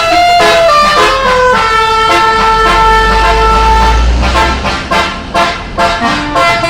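Bus's basuri musical horn (telolet) playing a melody of quick stepped notes, with a longer held chord about two to four seconds in. A low rumble sits under the held chord.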